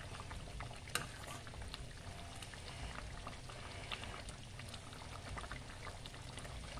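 Thick marinara sauce with ground beef simmering in a stainless steel pot, bubbling with soft, scattered pops. A light click about a second in.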